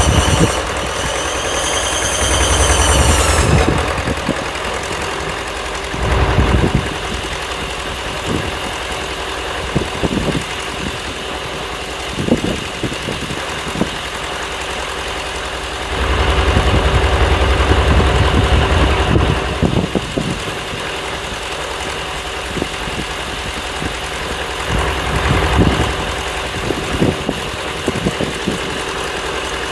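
Engine running steadily at idle, with a wavering high whine for the first few seconds and a few spells of heavier low rumble.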